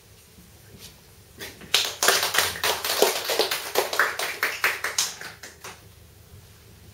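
Applause from a small audience, a patter of hand claps that starts about a second and a half in, is densest for a couple of seconds, and dies away after about four seconds.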